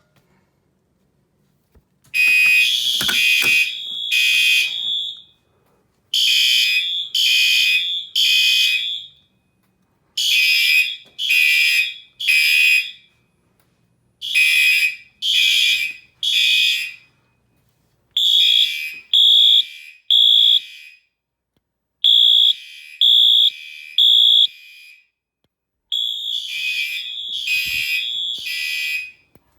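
Fire alarm horn strobes sounding a temporal-3 (code 3) evacuation pattern. The horns give groups of three short blasts with a pause of about a second and a half between groups, repeating roughly every four seconds. This is the sign that the fire alarm system has gone into alarm from a manual pull station.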